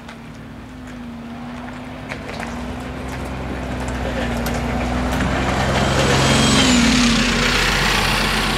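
A bus approaching from behind and passing close by. Its engine grows steadily louder, the engine note drops in pitch as it goes past about two-thirds of the way in, and then comes tyre and road noise as it drives on over the level crossing.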